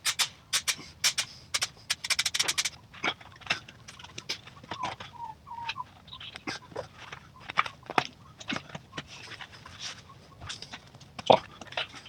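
Scattered sharp clicks and taps from hands working on the convertible top frame and its fabric, with a quick run of about ten clicks around two seconds in and a brief wavering squeak near the middle.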